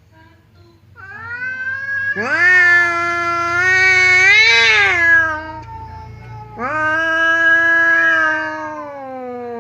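Domestic cats caterwauling in a territorial standoff: long, drawn-out threat yowls that waver in pitch. A loud one swells from about a second in, and a second begins past the middle and slowly sinks in pitch.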